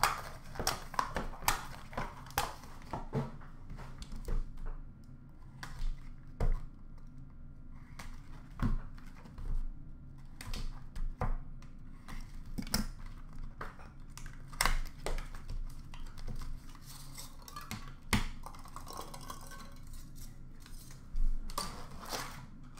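Hands opening and handling small cardboard trading-card boxes and their contents: a string of irregular clicks, taps and short scrapes of cardboard and card.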